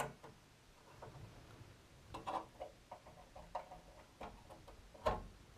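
Faint scattered clicks and taps of a power connector and its wires being handled and pushed onto a computer circuit board, with one louder knock near the end.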